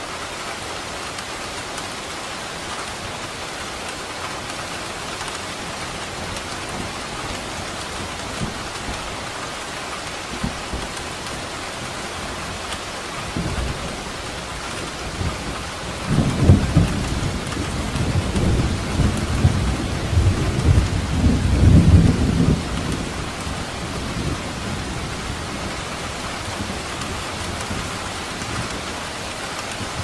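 Steady heavy rain, with a long roll of thunder about halfway through that rumbles for several seconds with a few louder peaks, then dies away.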